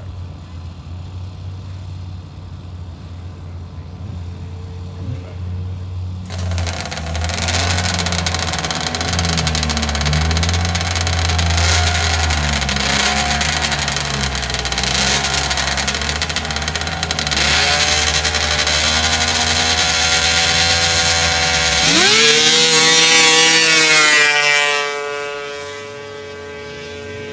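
Racing snowmobile engines: a low idling drone, then loud revving from about six seconds in, and near the end one machine accelerating hard with a sharply rising whine that slowly falls and fades as it pulls away down the track.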